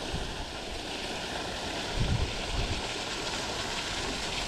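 Steady rush of water spilling through and over the closed lock gates, with a couple of brief low thuds about two seconds in.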